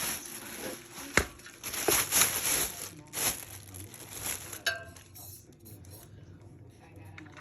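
Thin plastic packaging wrap crinkling and rustling as it is pulled off by hand, in uneven bursts with a sharp knock about a second in. The handling goes quieter after about five seconds, leaving only small clicks.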